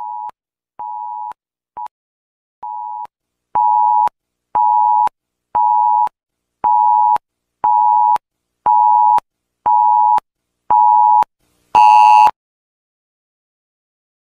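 Electronic alarm beeping at one steady pitch, in half-second beeps about once a second, with a short broken blip near the start. A few seconds in it jumps much louder, and the last beep is harshly distorted.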